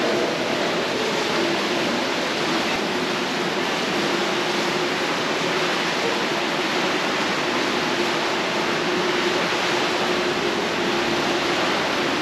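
Steady, even rushing noise with a faint low hum that comes and goes.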